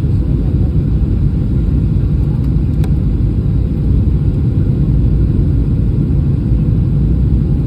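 Steady low rumble of an airliner's engines and airflow heard from inside the passenger cabin in flight, with a faint click about three seconds in.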